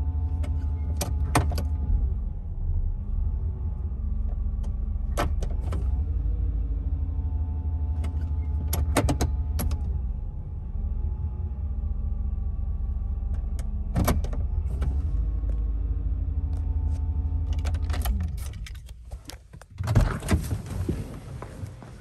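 GM 5.7 L TBI V8 idling steadily at about 800 rpm, no longer stalling now that a badly corroded distributor cap and rotor have been replaced. Scattered light clicks and jingles sound over it. The engine sound cuts off near the end, and a thump follows.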